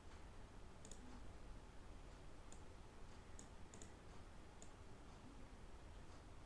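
Faint computer mouse clicks, about six of them at uneven intervals, over quiet room tone.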